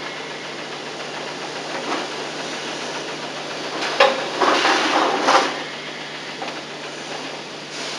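Plastic clicking and rattling as the BMW E31 seat-adjustment control unit is unclipped and handled, loudest in a short cluster about halfway through, over a steady hiss and low hum.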